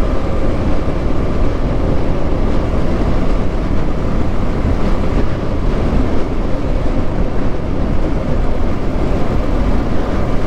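Heavy wind buffeting on the action camera's microphone while riding a Yamaha R15M motorcycle, with its 155 cc single-cylinder engine running steadily at cruising speed underneath.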